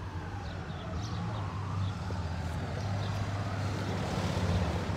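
Motor traffic engine noise, with a motorcycle riding closer: a steady low engine hum that grows louder toward the end. A faint tone higher up slowly slides down and back up.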